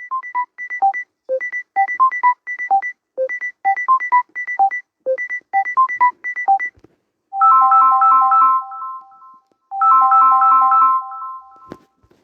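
Samsung Galaxy S10 ringtones playing. First comes a quick melody of short plucked-sounding notes that repeats about every two seconds. After a short pause comes a tone of ringing chords, sounded twice.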